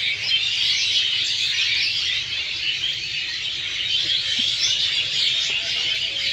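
A large flock of mynas (mostly pied and common mynas) chattering and squawking together at their evening roost in the trees: a dense, continuous din of many overlapping calls.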